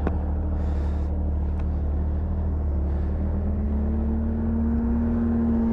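Snowmobile's Yamaha-built 1049 cc three-cylinder four-stroke engine running steadily at idle, with a single click just at the start. In the last couple of seconds the engine note rises slightly and grows a little stronger.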